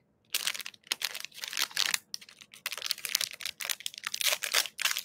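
A clear plastic packaging bag crinkling and rustling in the hands as it is being opened, in irregular bursts with brief pauses.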